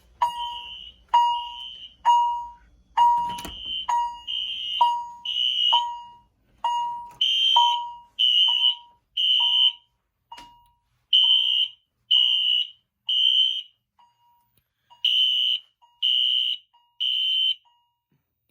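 Fire alarm activated by a pulled manual pull station. A Wheelock NS horn strobe sounds short, piercing blasts, settling into groups of three with a pause: the temporal-3 evacuation pattern. Behind it a Siemens chime strikes a steady ringing note about three times every two seconds, fainter after about ten seconds, with a knock near the start.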